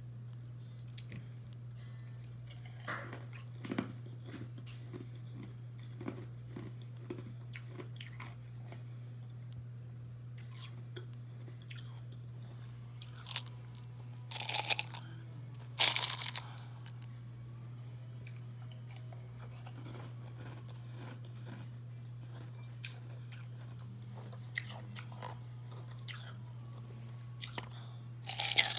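Carbonated ice being bitten and chewed close to the microphone: quiet crunching and chewing, with loud crunches about halfway through and again near the end, over a steady low hum.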